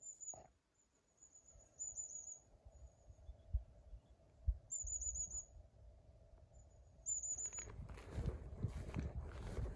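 A small songbird singing thin, very high phrases, each a quick run of four or five falling notes, heard four times. From about 8 seconds in, wind rumbles on the microphone.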